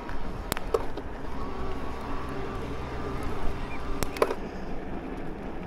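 Wind and tyre noise from an electric mountain bike being ridden, with a few sharp clicks and rattles. A faint steady whine runs for about two seconds in the middle.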